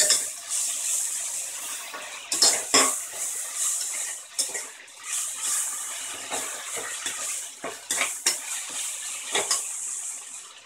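Chopped green chillies, mint and coriander leaves sautéing in oil in an open stainless steel pressure cooker, with a steady sizzle. A steel ladle scrapes and clinks against the pot several times as they are stirred.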